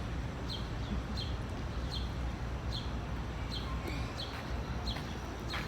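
A songbird repeating a short, high chirp, evenly spaced about every three-quarters of a second, over a steady low rumble.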